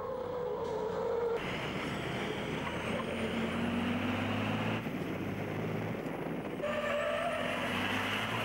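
Racing trucks' diesel engines running hard at speed on the track. The engine sound changes abruptly a few times, as the pictures cut between trucks.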